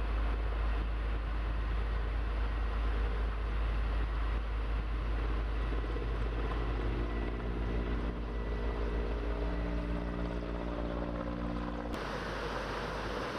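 An engine running under a heavy low rumble. A steady pitched hum joins about halfway through and cuts off suddenly near the end.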